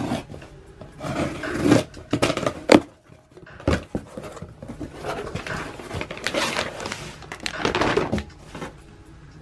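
A folding knife slitting packing tape on a cardboard shipping box, then the cardboard flaps pulled open and a plastic bag drawn out, with scraping, crinkling and a few sharp clicks.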